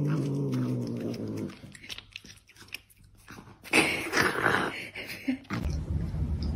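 A cat growling low and steadily while it holds food in its mouth, then chewing clicks, and a louder, rougher growl about four seconds in.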